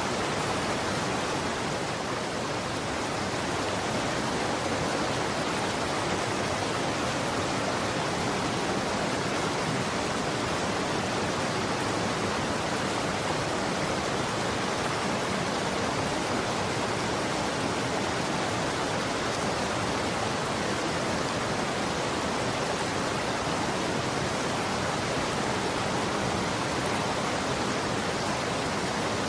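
Running water flowing steadily, an even rushing hiss with no breaks or changes.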